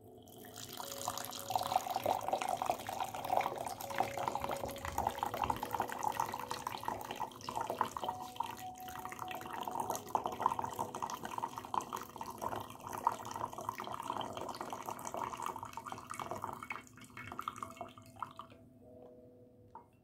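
Coffee poured in a thin stream from above into a double-walled glass, a steady splashing trickle that fades out as the stream thins near the end.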